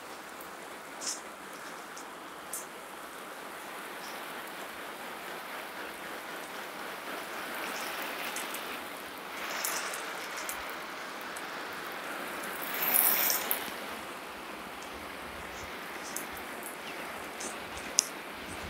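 Garden water spray pattering down on a wooden fence and plant buckets: a steady rain-like hiss that swells a little around the middle, with a few faint clicks.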